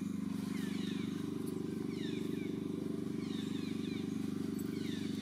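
A steady low drone with a fast flutter, like a small engine running, under short, high animal chirps that fall in pitch, several each second.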